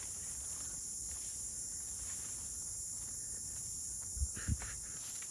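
Steady, high-pitched insect chorus. Two short low thumps, close together, come about four seconds in.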